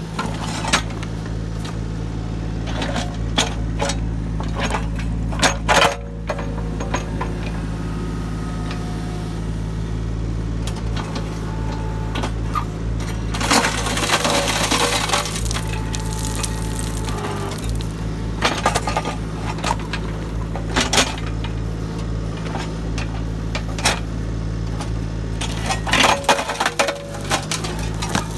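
Mini digger's diesel engine running steadily while its hydraulic pulveriser jaws crush a concrete post, with sharp cracks and crunches as the concrete breaks. A louder two-second stretch of crushing noise comes about halfway through, and a cluster of cracks comes near the end.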